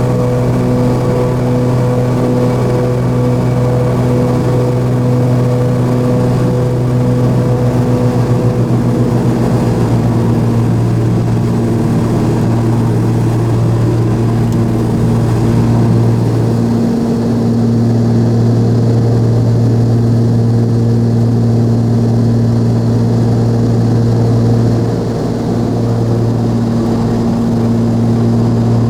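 The Cessna 340A's twin Continental TSIO-520 piston engines and propellers running with a steady, loud drone. A pulsing beat comes in for a few seconds about seven seconds in, and the level dips briefly near the end.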